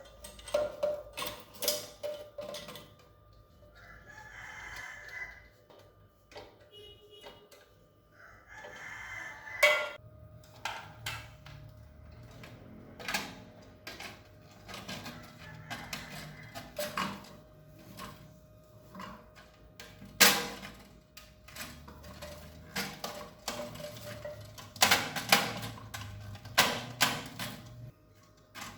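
A rooster crows twice in the background, each crow lasting about a second and a half, about four and nine seconds in. Many sharp clicks and knocks of hard objects being handled run throughout.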